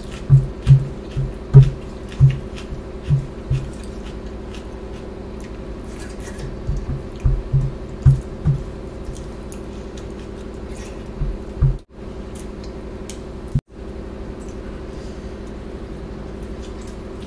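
Close-miked eating sounds of someone chewing rice and dal eaten by hand: runs of soft chewing thuds about two a second, with wet squishing, broken by a few quieter stretches.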